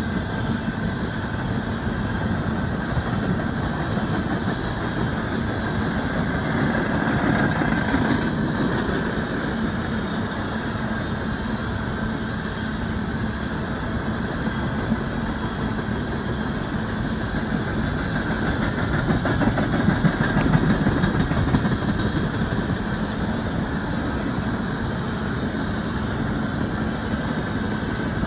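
An empty coal train rolling past: a steady rumble of steel wheels on rail, swelling louder about a quarter of the way in and again about two-thirds through.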